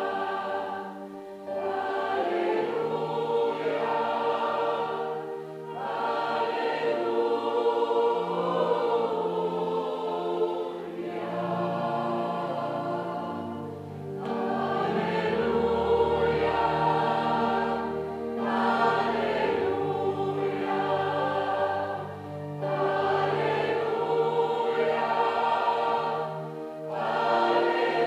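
Gospel choir singing in held phrases that break off briefly every few seconds, over low sustained bass notes.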